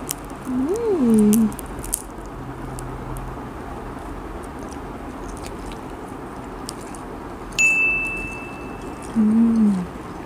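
A person chewing a bite of banana spring roll with her mouth closed, with a few soft chewing clicks near the start. Twice, near the start and near the end, she gives a closed-mouth 'mmm' hum whose pitch rises and then falls. About three-quarters of the way through, a high, steady chime-like tone comes in sharply and lasts about two seconds.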